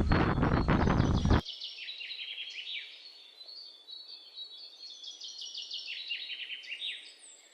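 A loud rushing noise cuts off suddenly about a second and a half in, leaving a small bird chirping in rapid runs of short, falling chirps over a faint hiss.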